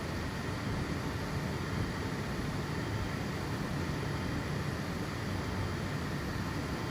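FDM 3D printer running mid-print: a steady whir of its fans and motors with faint steady tones.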